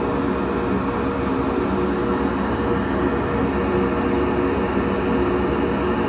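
Steady machine whir with a low hum underneath, the sound of shop equipment running without a break.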